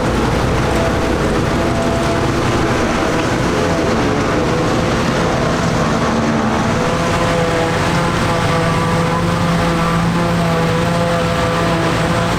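Vintage tractor engine running steadily, with a lower note growing stronger from about eight seconds in.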